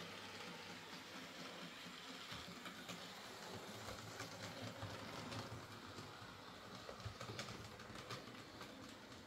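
Hornby Class 4F OO gauge model locomotive running along layout track on its test run after repair: a faint, steady motor hum with light clicking from the wheels on the rails.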